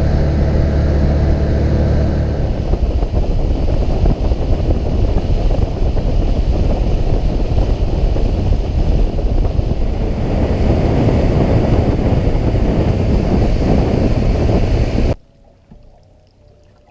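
Fishing boat running across the water: a steady motor drone under heavy wind on the microphone and water noise. It cuts off abruptly near the end.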